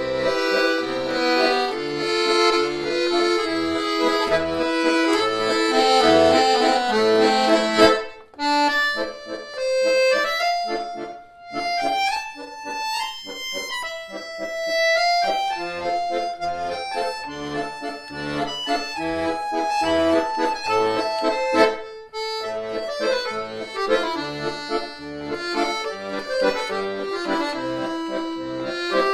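Accordion music with sustained chords over a steady bouncing bass. About eight seconds in, the bass drops out and the melody plays alone for several seconds before the full accompaniment returns.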